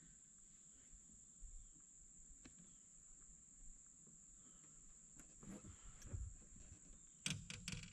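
Near silence with a steady, high-pitched insect drone, cricket-like, running under it. A few faint knocks come near the end.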